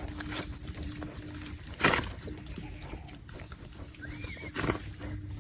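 Pigs feeding, with a run of small clicks and two short, loud noisy bursts from the animals, the first about two seconds in and the second near the end.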